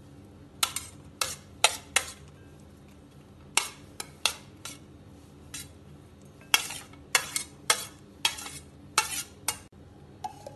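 A steel plate knocking and scraping against the rim of a stainless-steel mixer-grinder jar as crushed shallots, garlic, ginger and green chillies are tipped in: an irregular run of sharp metal clinks.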